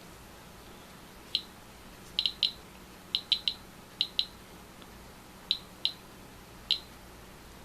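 Geiger counter beeping at random intervals: short, identical high beeps, some in quick pairs and triples, about one or two a second. It is counting radiation from a lens element being tested for thorium dioxide.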